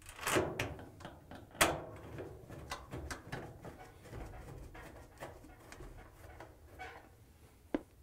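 Screwdriver tightening a long screw up through a dryer's sheet-metal front into its top: a string of small clicks and scrapes, with two louder knocks in the first two seconds and a sharp click near the end.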